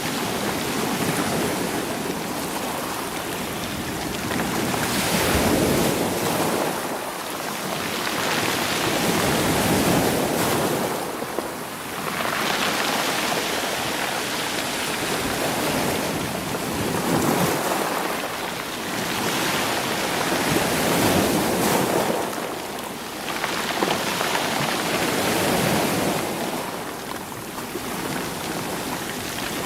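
Sea waves surging in over rocks and stones and drawing back, swelling and falling every four to five seconds.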